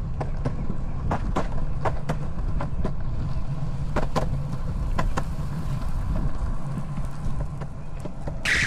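Longboard wheels rolling over a concrete path: a steady low rumble, with sharp clicks roughly once or twice a second as the wheels cross the joints between slabs. Near the end comes a loud, hissing scrape.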